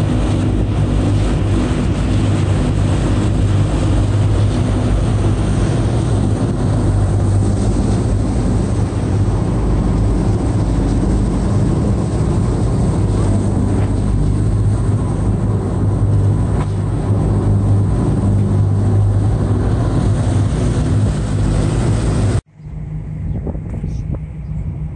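A passenger boat's engine running with a steady low hum under the rush of water in its wake and wind. Near the end it cuts off abruptly, giving way to a quieter steady rumble.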